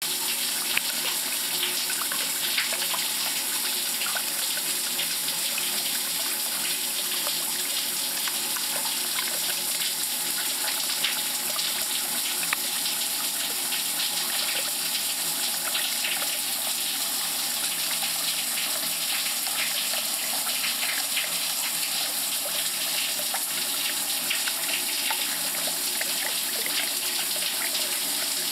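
Tap water running steadily into a drain: a constant rushing hiss with faint scattered crackles. It starts abruptly.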